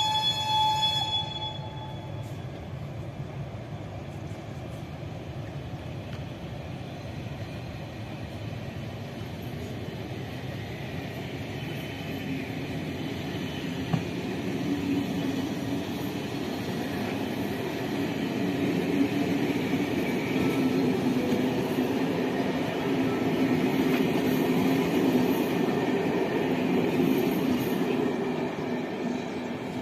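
ČSD passenger coaches hauled by an E499.0 'Bobina' electric locomotive rolling past: a steady rumble of wheels on rails that slowly grows louder as the coaches pass close, with a single knock about fourteen seconds in.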